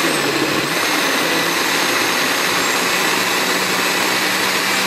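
Oster countertop blender running steadily at speed, pureeing a jar of boiled tomatillos, chiles, garlic and cilantro into a liquid green salsa. The motor's pitch wavers briefly at first, then holds steady.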